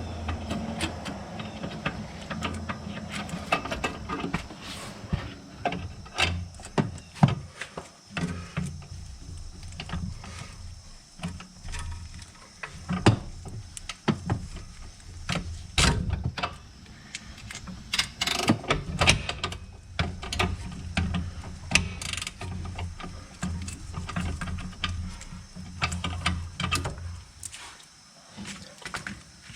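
Ratcheting wrench clicking in irregular runs as it works a sway bar link nut, with scattered knocks and clinks of metal tools. A steady low hum runs underneath and fades near the end.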